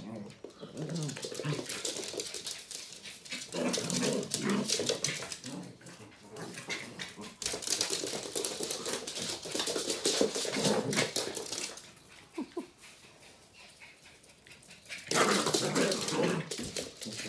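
Two West Highland White Terriers play-fighting, vocalising in several bursts, with sharp clicks and scrabbling from their claws on a wooden floor. It goes quieter for a few seconds before a last loud burst near the end.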